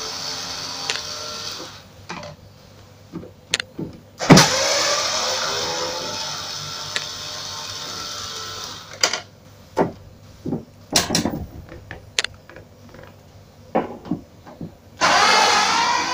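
Electric screwdriver running in three spells, backing screws out of the plastic rear cover of a Sharp CRT television, the longest spell about four seconds. Between spells come sharp clicks and knocks as the tool is moved to the next screw and the screws come loose, the loudest a knock just before the longest spell.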